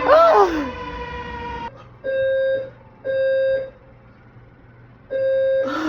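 Building fire alarm horn sounding in the temporal-three evacuation pattern: half-second buzzing tones about a second apart, with a longer pause between groups. Before it, in the first second and a half, a short swooping tone and then a held tone that cuts off suddenly.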